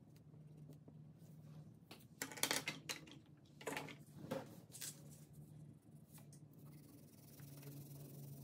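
Crayons and paper being handled on a tabletop, with a few short knocks and rustles around the middle. Near the end a wax crayon scribbles on paper with a soft, steady scratching, over a faint low hum.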